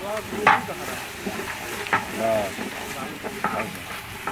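Curry frying in a large aluminium pot over a wood fire, stirred with a long bamboo stick. The stick knocks against the pot three times, the first, about half a second in, the loudest.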